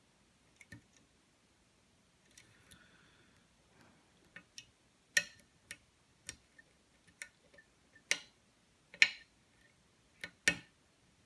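Lock pick working the pins of a challenge lock: a string of sharp, irregular clicks from the pick on the pins and the pins setting, with a faint brief scrape near the start.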